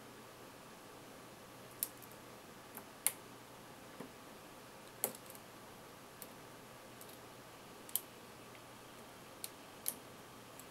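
Faint, irregular metal clicks and ticks of a pick working the dimple pins inside a Millenco Magnum cylinder lock, about nine sharp ticks spread unevenly over a steady faint background hum.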